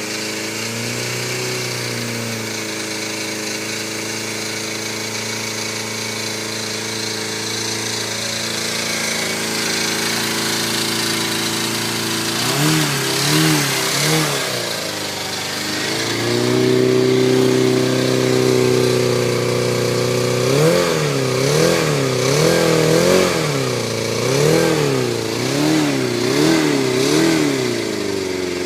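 Yamaha FZR250R 250 cc inline-four motorcycle engine running on its first start after a top-end rebuild with new piston rings. It idles steadily, holds a higher rev for a few seconds midway, and is given a run of quick throttle blips twice, a short burst of three and a longer one near the end.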